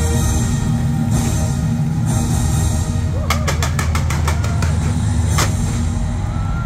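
Sustained show music with held tones, then about three seconds in a quick volley of about seven firework bangs and another sharp bang about two seconds later, as crowd voices begin to cheer.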